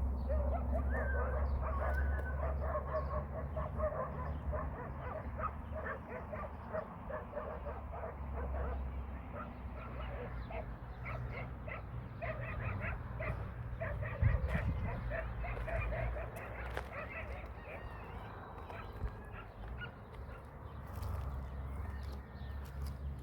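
Many short animal calls, several animals calling over one another, over a steady low rumble, with one louder thump about fourteen seconds in.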